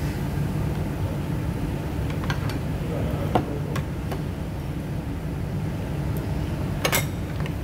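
A metal fork clinking and scraping on a ceramic plate of rice: a few light clicks a couple of seconds in and a sharper clink near the end. Under them runs a steady low rumble of room noise.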